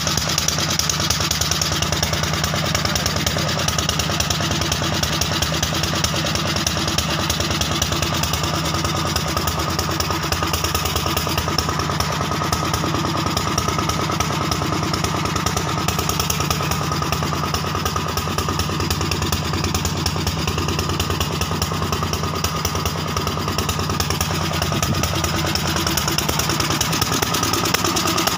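5 kVA biogas-fuelled generator set's engine running steadily at constant speed.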